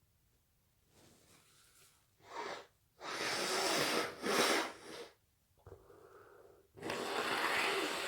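Forceful nasal and breath sounds from a person with a head cold: a quick in-breath, then two long, loud, noisy blasts of air about four seconds apart, with a duller, quieter one between them.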